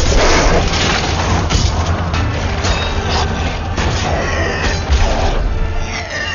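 Film battle sound effects of armoured soldiers in melee: clashing blades and armour, crashes and deep booms, loud and dense, with music underneath.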